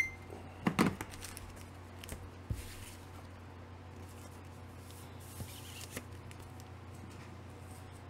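Comic books in plastic bags with backing boards being handled: soft rustling and a few light taps, the loudest about a second in. A faint steady hum runs underneath.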